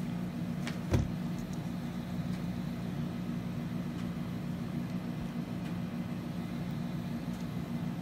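A steady low hum throughout, with one sharp plastic click about a second in as a clear two-piece keycap is pulled out and apart by hand.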